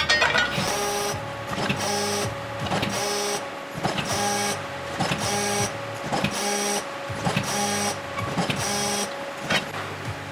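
Hydraulic press brake bump-forming a mild steel cone blank: a quick run of short strokes, about one a second. Each stroke brings a brief humming whine, with sharp clicks between strokes.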